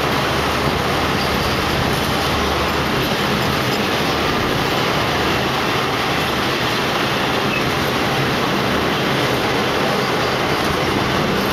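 Type 22 passenger coaches rolling past as the train pulls out, making a steady noise of steel wheels on rail.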